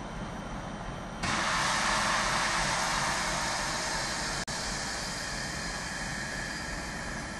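TEP70 diesel locomotive's engine rumbling low as it rolls slowly in. About a second in, a loud hiss of released compressed air starts suddenly and slowly fades.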